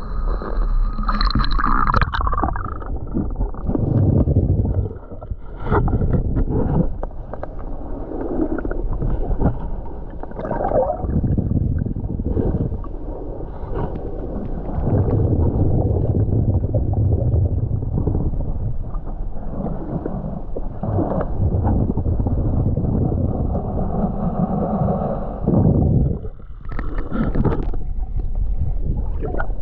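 Muffled underwater sloshing and rumbling of water around a GoPro as a snorkeler swims, swelling and easing every few seconds, with a brighter burst of splashing near the start.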